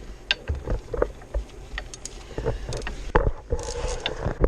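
Socket ratchet being handled and worked to tighten a bolt: scattered, irregular clicks and knocks over a low rumble.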